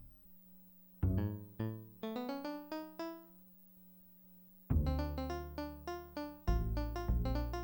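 Kawai FS640 arranger keyboard playing a piano-like voice: a run of single notes that ring and fade, a short lull, then fuller chords over a heavy bass line about halfway through.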